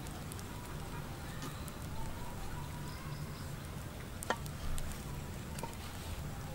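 A bamboo skewer being worked through a whole raw chicken on a metal tray, heard as two sharp clicks about four and five and a half seconds in over a low steady outdoor rumble.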